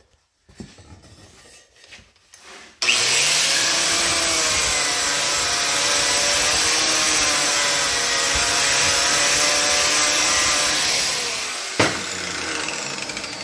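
Angle grinder with a green strip disc, starting about three seconds in and grinding the old clear coat and corrosion off the lip of an alloy car wheel, its motor whine wavering under load. It eases off near the end, with a sharp click.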